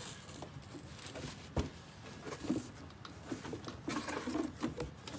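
Cardboard shipping box being handled and opened: scattered faint rustles and scrapes, with one sharp knock about a second and a half in.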